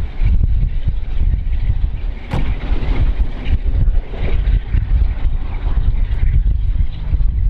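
Steam-hauled train of LMS Royal Scot Class 46115 Scots Guardsman running past and away, a loud low rumble throughout, with a sharp click a little over two seconds in.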